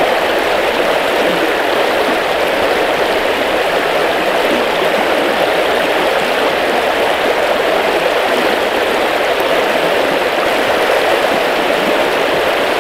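A small river running high and fast in spring: a steady rush of flowing water that does not rise or fall.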